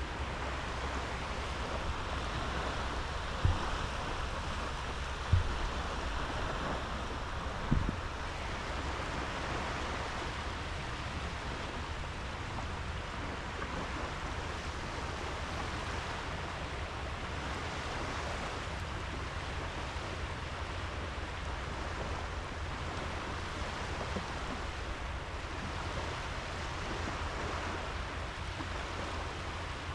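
Gentle sea surf washing on a sandy beach as a steady hiss, with three short low thumps in the first eight seconds.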